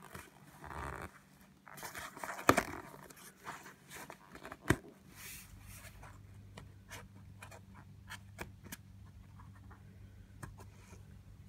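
Gloved hands handling a clear plastic tub and its lid: rustling and scraping, with two sharp plastic clicks in the first five seconds and lighter ticks after.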